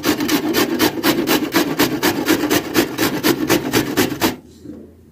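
Radish being grated on a stainless-steel box grater: rapid, even rasping strokes that stop about four seconds in.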